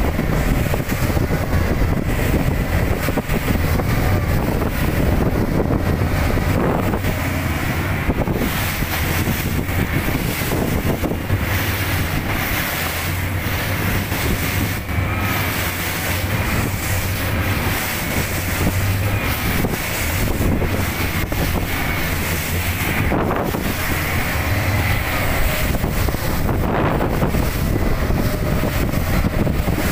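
Twin Mercury outboard motors running steadily at speed on a rigid inflatable boat, a continuous low hum under heavy wind buffeting on the microphone and the rush of the hull and spray through choppy waves.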